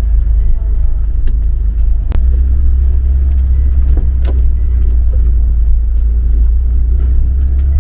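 Volkswagen Kombi van's engine running with a steady low rumble, with two sharp clicks about two and four seconds in.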